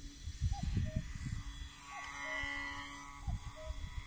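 Faint whine of a homemade RC plane's electric motor and propeller as it takes off and climbs away, with wind gusting on the microphone. A bird repeats a two-note call, a higher note then a lower one, about every second and a half.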